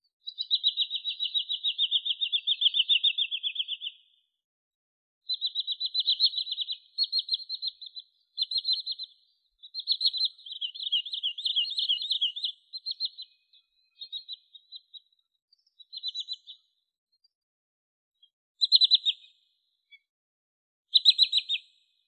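Wood sandpiper calling in rapid high trills: a long run of fast repeated notes lasting about four seconds, then a series of shorter trilled phrases with pauses between them, the last few brief and spaced out.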